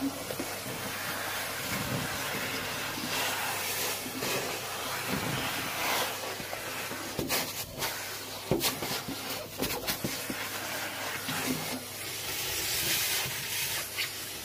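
Henry cylinder vacuum cleaner switching on and running, a steady hiss and hum as its hose sucks up loose cork crumbs from a workbench. Short knocks and clicks of the nozzle and debris against the bench come now and then.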